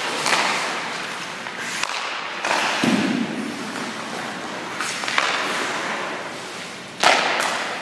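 Hockey skate blades scraping and carving on rink ice, with several thuds and knocks, and a sudden loud hit about seven seconds in.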